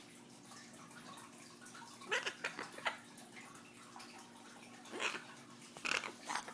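A macaw hiccuping: four short, sharp hics spaced irregularly a second or more apart.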